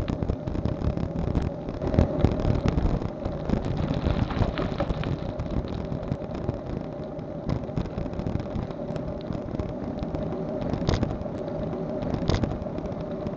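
Steady low rumbling noise with a faint steady hum and scattered clicks, picked up by a cheap Proscan HD 720P action camera's built-in microphone while the camera is handheld outdoors.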